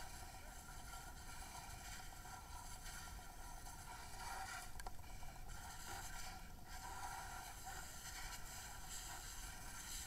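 Fire hose stream spraying water into a burning car's engine compartment, a steady hiss of spray and steam as it hits burning magnesium parts, with a single click nearly five seconds in.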